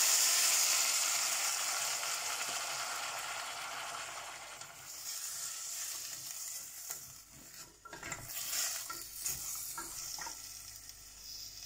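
Water poured into a hot pan of carrots and oil sizzling, loudest at first and slowly dying down. A spoon stirs and knocks against the pan a few times later on.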